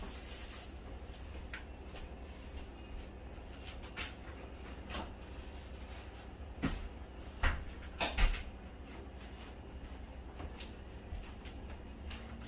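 Scattered clicks and knocks of PVC sink drain fittings being handled and fitted by hand, with a cluster of louder knocks about seven to eight seconds in, over a steady low hum.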